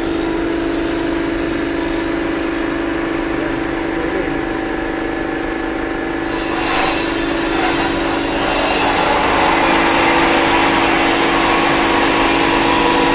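A machine running steadily with a constant hum. A hiss joins about seven seconds in, and the sound stays louder after that.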